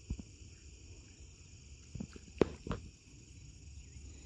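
Steady, continuous chorus of insects such as crickets, high-pitched. A few sharp knocks break in: one at the start and a cluster around two to three seconds in, the loudest about two and a half seconds in.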